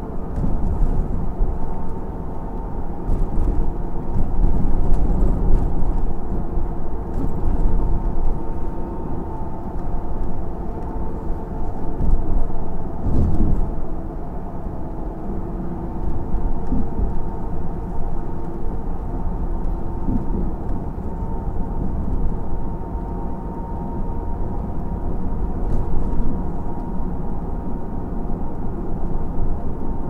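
Steady low rumble of a vehicle in motion, heard from inside, with occasional knocks and jolts from bumps in an uneven surface; the strongest jolt comes about 13 seconds in.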